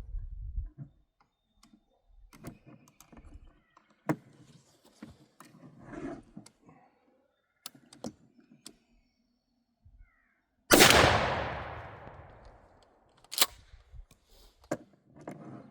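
A 12-gauge Mossberg 500 pump shotgun fires a single 3-inch Winchester Double X turkey load about two-thirds of the way in, its report echoing away over a couple of seconds. Faint handling clicks come before the shot and a couple of sharp clicks follow it.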